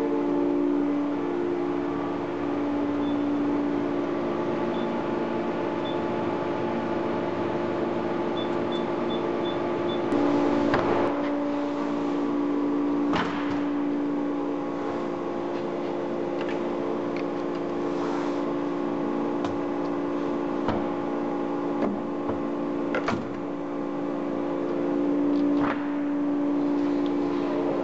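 Danobat PGA 4 CNC punch press running under power, with a steady hum of several held tones. About half a dozen sharp knocks come a few seconds apart.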